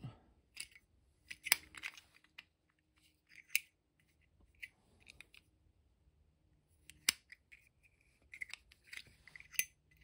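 Steel Zippo lighter being handled: light metal scrapes and sharp clicks as the original chimney insert goes back into the case and the lid is snapped open and shut, the sharpest click about seven seconds in. The lid still sits a little loose on its repaired hinge with this insert.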